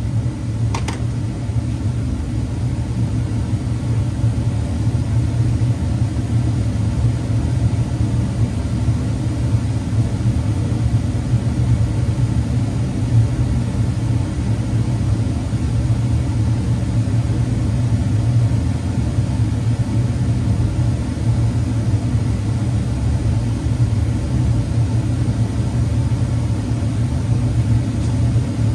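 2014 Dodge Durango engine idling steadily, a low even rumble; a light click about a second in.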